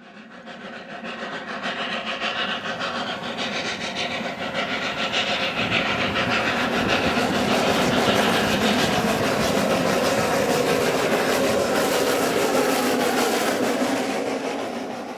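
Snowdon Mountain Railway rack-railway train running on the line, with rapid mechanical clattering over a steady engine tone. It grows louder over the first several seconds and then holds steady.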